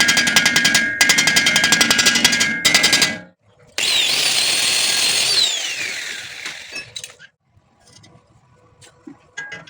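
Welding arc crackling in a fast, even pulse for about three seconds and then stopping. After a short pause a power tool whirs for about two seconds and winds down, its pitch falling, followed by a few light ticks.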